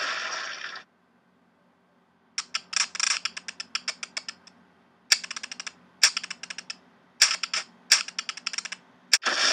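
Typing sound effect: runs of rapid, sharp key clicks in several bursts with short gaps, as title text types itself out. It opens with the end of a burst of rushing noise that stops just under a second in, and another such burst begins near the end.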